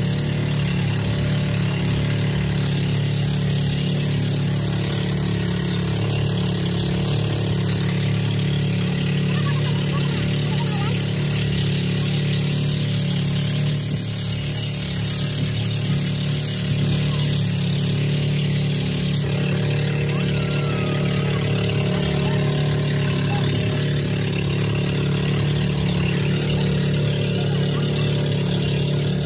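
Engine of a motorized outrigger boat (bangka) running steadily while underway, an unbroken low hum with no change in speed.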